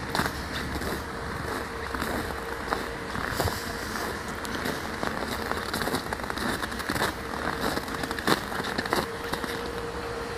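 Outdoor background noise on a handheld camera's microphone: a steady rushing rumble with irregular crackles and clicks. A faint steady hum drops out in the middle and comes back near the end.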